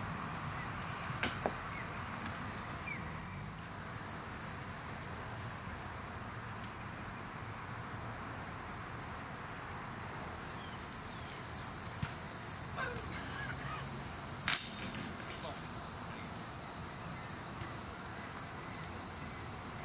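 Insects trilling steadily in the background, getting louder about halfway through. About two-thirds of the way in comes one sharp hit that rings briefly.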